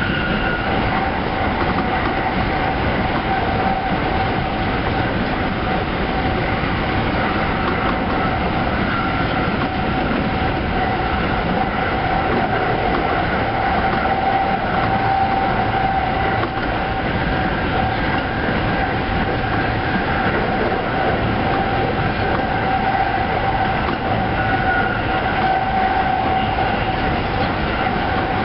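Tsukuba Express TX-2000 series electric train running at speed, heard from the driver's cab: a steady rolling rumble with a steady whine. It is passing into the DC/AC dead section, where it coasts without traction power.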